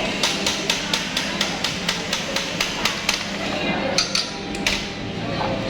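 A quick, even series of sharp knocks, about four or five a second, a dozen or more in a row. A pause follows, then three more knocks about a second later.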